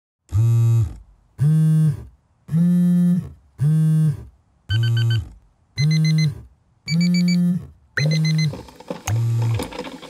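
A low electronic buzzing note pulsing about once a second, each pulse about half a second long and sagging in pitch as it stops, in a steady rhythm like a sound-designed beat. About five seconds in, short high beeps join the pulses, and from about eight seconds a busier, clattering texture fills the gaps.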